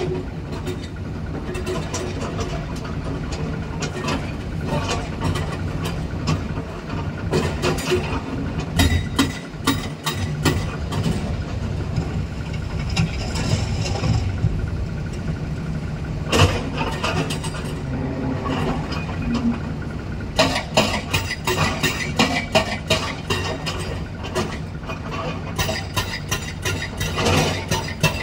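A Kobelco excavator's diesel engine running under load while its hydraulic breaker hammers on rock, giving repeated sharp blows that come thick and fast in the last third.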